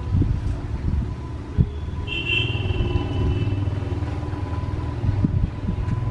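Low, steady rumble of a train approaching in the distance. A brief high two-tone sound comes about two seconds in.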